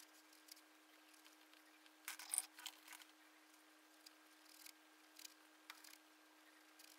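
Faint scratchy brushing of a paintbrush loaded with acrylic paint dragged across a stretched canvas, in short strokes, with a louder cluster about two seconds in. A faint steady hum sits underneath.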